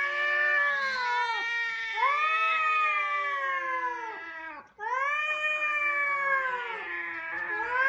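Domestic cats yowling in a face-off: long, drawn-out, wavering wails one after another, with a brief break a little after halfway.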